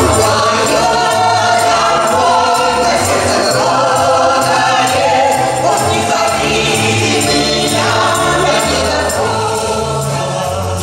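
A Russian folk ensemble singing a song in chorus, accompanied by button accordions and a tambourine, with a steady beat.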